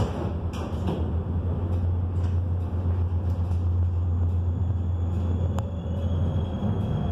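Cabin noise of a Konstal 105NWrMp tram with Protram traction motors running along the track: a steady low hum over an even rumble of wheels on rails. A few light clicks come in the first second, and one sharp click comes about five and a half seconds in.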